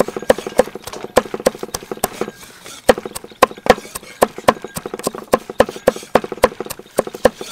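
Cleaver chopping garlic cloves on a thick round wooden chopping block: a steady run of sharp knocks, about three a second, with a brief pause a couple of seconds in.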